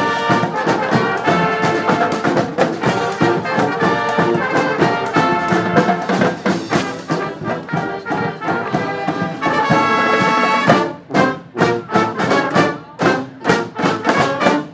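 A street brass band playing: horns in full ensemble over percussion. About eleven seconds in the band breaks into short, punchy stabs with gaps between them.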